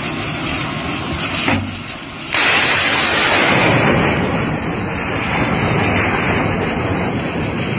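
Surface-to-air missile launch: a sudden loud rushing noise a little over two seconds in as the rocket motor fires, carrying on as the missile climbs away. A steadier, quieter rushing noise comes before it.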